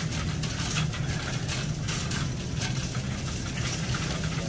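Grocery-store background: a steady low mechanical hum with faint scattered clicks and rustles.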